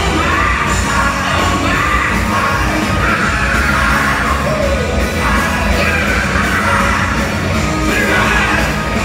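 Live rock band playing: a male lead singer belting the vocal over electric guitar, bass and drums, heard from the audience in a theatre.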